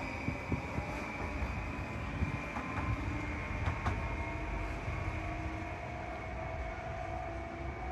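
Stadler FLIRT electric multiple unit pulling away: a steady low rumble of its wheels on the rails, with a faint whine from its traction motors that rises slowly in pitch as it gathers speed.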